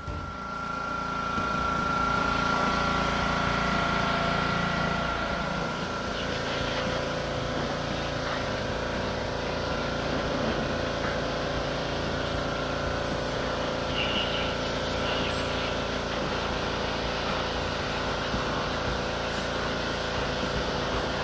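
Pressure washer running steadily, its motor and pump humming under the hiss of the water jet as the wand sprays a boat's hull. The sound comes up to full strength in the first couple of seconds.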